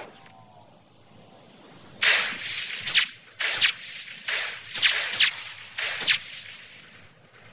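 A quick series of sharp whip-like swishes, about eight of them starting about two seconds in and ending by six and a half seconds, from an animated logo's sound effects.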